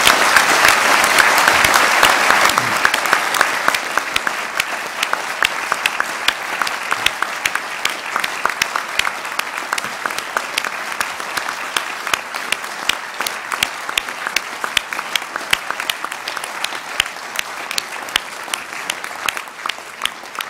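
Large audience applauding, loudest in the first few seconds, then settling into steady clapping in which individual claps stand out, easing slightly toward the end.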